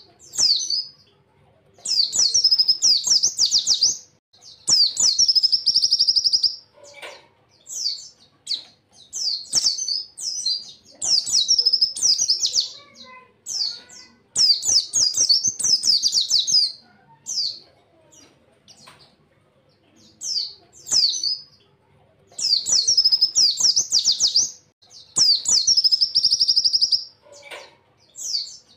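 White-eye (pleci) singing in repeated bursts of rapid, high-pitched chattering trills, each one to two seconds long with short pauses between: the fast-fire 'tembakan' song that pleci keepers play as a tutor recording.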